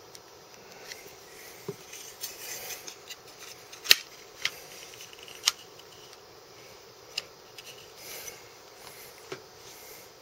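Metal helical fletching clamp being handled and seated onto an aluminium fletching jig to press a freshly glued vane onto the arrow shaft: scattered sharp metal clicks and knocks with some light rubbing in between, the sharpest click about four seconds in.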